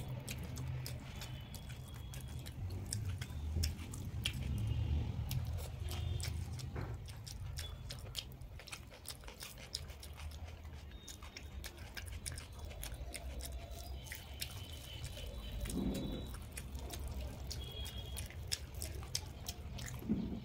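Close-miked chewing of rice and mashed green-pea bhorta, with many quick, irregular wet mouth clicks and smacks, over a steady low hum.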